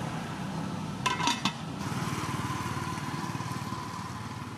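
A small engine running steadily, with a brief clatter about a second in.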